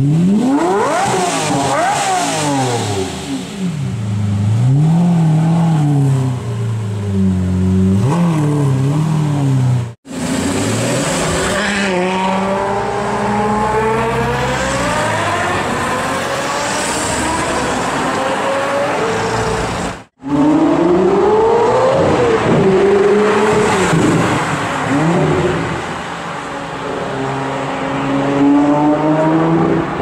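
Supercar engines revving and accelerating in three separate clips, the pitch climbing and falling repeatedly as the throttle is blipped. Abrupt cuts about ten and twenty seconds in.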